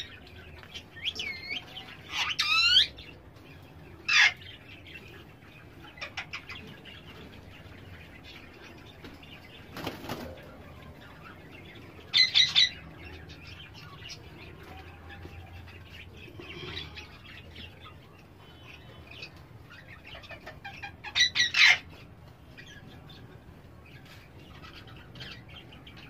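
Ringneck parakeets calling in sharp, loud screeches in short bursts: near the start, around two and four seconds in, again about twelve seconds in and about twenty-one seconds in, with quieter chatter between. A brief knock comes about ten seconds in.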